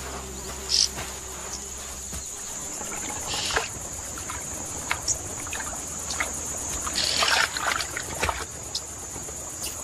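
Wild insects droning steadily on one high tone, with scattered soft clicks and brief rustles. A music cue fades out about two seconds in.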